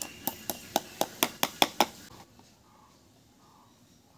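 Claw hammer tapping a small nail through a thin panel into a wooden speaker cabinet: about nine quick, light strikes in under two seconds, then it stops.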